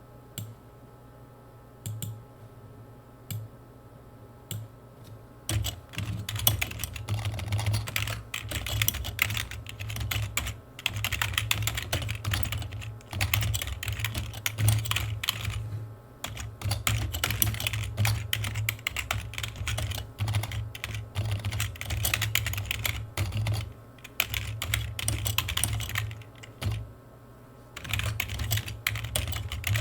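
Computer keyboard typing: a few separate keystrokes for the first five seconds or so, then fast runs of typing broken by short pauses.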